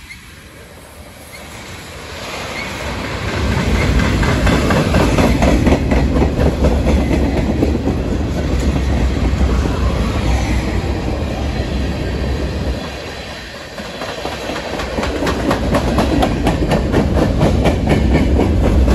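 Freight train cars rolling past, steel wheels rumbling on the rails with a rapid clickety-clack. It swells a few seconds in, eases briefly past the middle, then builds again.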